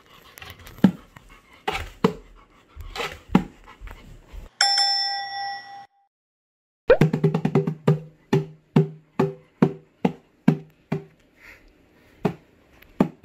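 Small red djembe hand drum being struck, sparse hits at first, then a fast run of low, booming drum hits that slows toward the end. Partway through, a bell-like chime sounds for about a second and is followed by a second of silence.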